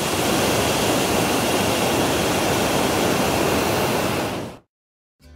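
Hot-air balloon propane burner firing in one long, steady rushing blast while the envelope is heated upright; it cuts off suddenly about four and a half seconds in.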